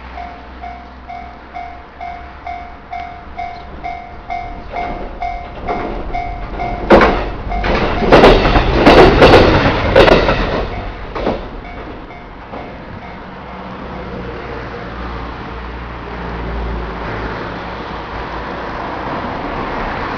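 A Japanese railway level crossing's warning bell rings in a steady repeating pulse, about two strokes a second, while a diesel railcar passes over the crossing. Its wheels strike the rail joints with a run of loud clacks about halfway through, then the bell stops and the train's running noise goes on steadily.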